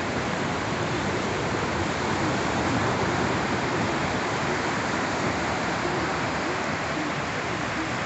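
Sea surf: small waves breaking on a flat sandy beach, heard as a steady, unbroken wash with no single breaker standing out.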